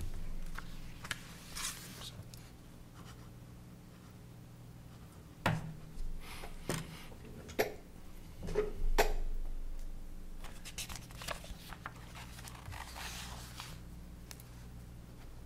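Pen scratching on paper as documents are signed, with paper rustling and several sharp knocks on the table in the middle, over a steady low hum.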